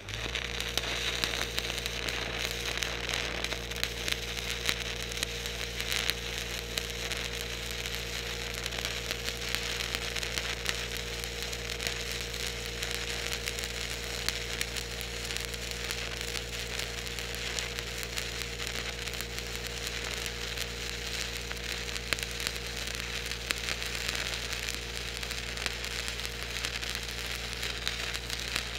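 Stick welding arc with 3/32-inch 7018 rod, struck at the start and then crackling and sizzling steadily. Under it the engine-driven Lincoln welder runs with a steady low hum.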